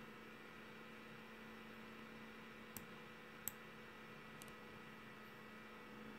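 Near silence: a faint steady hum, with two faint clicks under a second apart near the middle.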